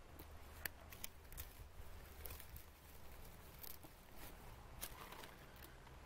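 Faint, irregular sharp clicks and small crackles, a dozen or so scattered over a few seconds, above a low steady hum.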